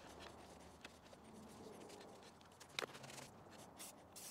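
Near silence: faint room tone with a few light ticks, one slightly louder a little before three seconds in.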